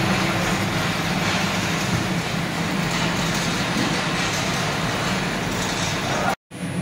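Basket mill running under test: a steady motor hum over a broad mechanical noise, which drops out for a moment near the end.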